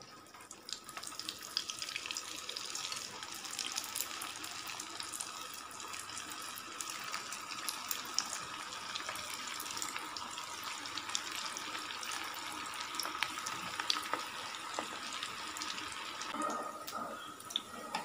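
Corn kebabs deep-frying in hot oil: a steady sizzle with many small crackles, building up over the first second or two.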